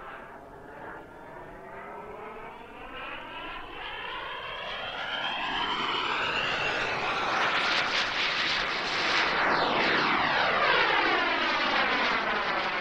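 Jet Central Mammoth model jet turbine in flight, growing steadily louder and loudest about two thirds of the way in as the jet passes close. Its whine and rush sweep up and down in pitch as it goes by.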